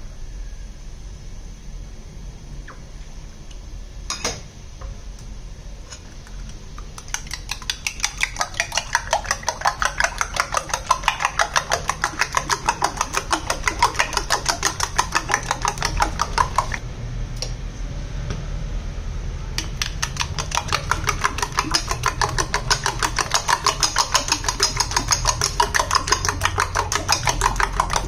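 Metal spoon beating raw eggs in a ceramic bowl, clinking against the bowl in rapid, even strokes. The beating starts about a quarter of the way in, stops briefly just past the middle, then picks up again. A low steady hum sits underneath.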